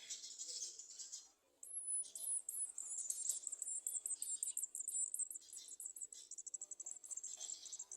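Garden sunbirds chirping at the nest in rapid, very high-pitched series of short notes. The notes break off briefly about a second and a half in, then resume with a high whistled note and run on densely.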